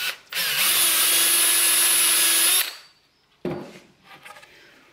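Cordless drill boring a hole into a hickory bowl blank through a round template, running at steady speed with a constant whine for about two and a half seconds, then stopping. A single knock follows about a second later.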